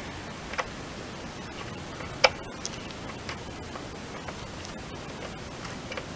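Scattered small clicks and taps from a metal hand tool working at the plastic wheel-arch liner of a VW Golf IV, the sharpest about two seconds in, over a steady hiss.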